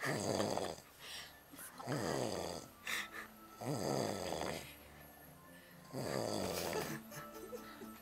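A drunk man asleep, snoring in heavy snores about every two seconds, each under a second long and falling in pitch.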